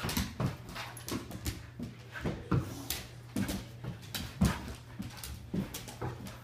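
Husky making repeated short whines and grumbles, about two or three a second, as it plays at a cat, with its paws scrabbling on the wooden floor.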